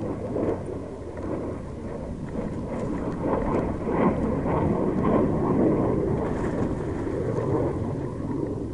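Wind buffeting the action camera's microphone, mixed with the rumble and rattle of a mountain bike rolling down a loose rocky gravel trail. The noise grows louder through the middle.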